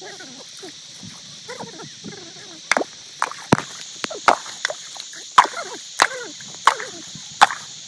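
Repeated sharp chopping blows, about ten of them at irregular intervals of half a second or so, starting about three seconds in. They sound over a steady high-pitched buzz of insects, with faint voices in the first few seconds.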